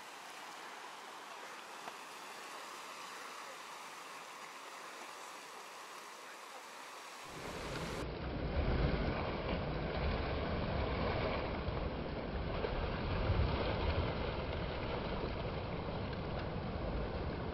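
Sea surf and wind: a soft, steady wash that switches abruptly about seven seconds in to a louder, low rumble with wind buffeting the microphone.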